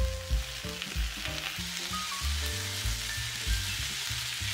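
Udon noodles, shredded cabbage and shrimp sizzling in hot oil in a frying pan, a steady crackling hiss as the food is stirred with chopsticks. Background music with a bass line plays underneath.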